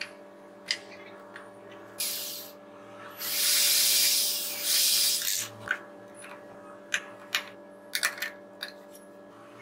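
DeWalt cordless drill boring a pilot hole in plywood in three short runs, the longest near the middle, with sharp clicks and taps from a hand screwdriver driving small screws into a metal hinge before and after.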